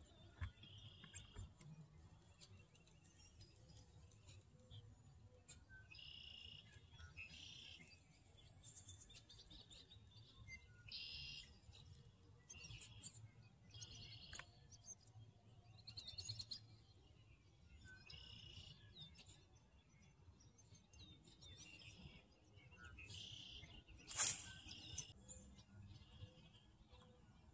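Faint birds calling over and over from the trees around the water, in short high-pitched phrases spaced a second or two apart. A brief, louder sharp sound comes near the end.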